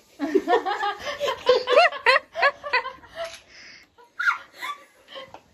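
Women laughing: a long run of quick, repeated laughs in the first three seconds, then a few softer laughs before it dies away.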